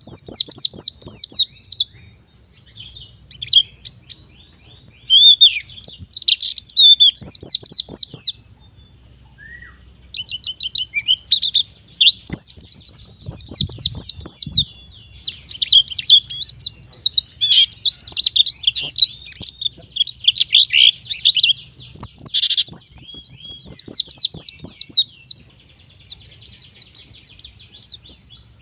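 White-eye (pleci) in full song: a fast, high twittering of rapid sliding notes, in long bursts broken by a few short pauses.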